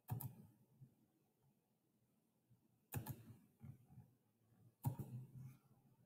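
Faint computer mouse clicks: three sharp ones about two seconds apart, each followed by a few fainter taps.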